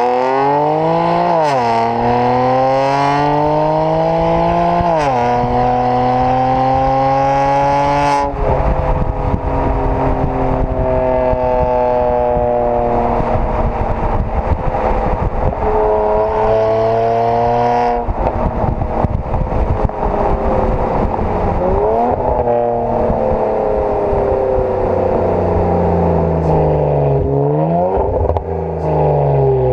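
BMW 335i twin-turbo straight-six through decat downpipes and an AC Schnitzer quad exhaust. The engine note climbs and drops sharply twice, like gear changes under acceleration. From about eight seconds in a long run of exhaust crackles and pops follows, then the revs fall and rise again near the end.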